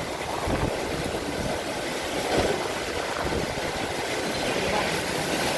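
Heavy rain with strong gusting wind: a steady rushing hiss, with gusts rumbling on the microphone about half a second in and again near the middle.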